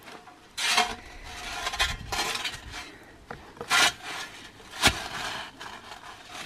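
Perforated metal sand recovery boards being handled and shoved into soft sand under a stuck vehicle's wheel: a series of separate scrapes of board on sand and board on board, with a sharp clank about five seconds in.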